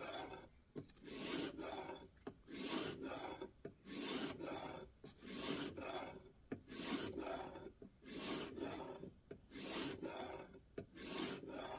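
Knife edge of N690 steel being stroked against a sharpening stone on a guided sharpening system, a rhythmic rasping scrape of about one swipe a second.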